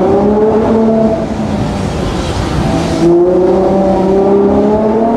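Ferrari 812 GTS's 6.5-litre naturally aspirated V12 accelerating hard, heard from the open-top cabin. Its pitch rises, eases off about a second in, and climbs again from about three seconds in.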